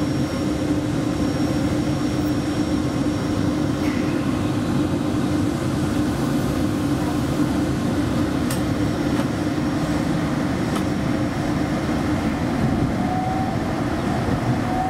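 Driverless airport metro train heard from inside the car as it pulls away and gathers speed: a steady running rumble and hum, with a motor whine rising in pitch near the end and a few faint clicks.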